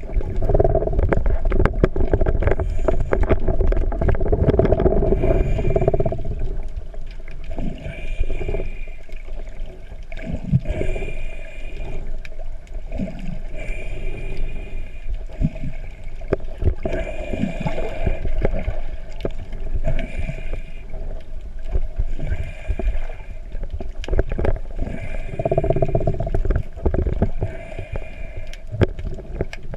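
Underwater sound picked up by a camera housing in shallow, wave-stirred water: a steady low rumble and gurgle of surge with many small knocks. Short clusters of steady high tones recur about every three seconds.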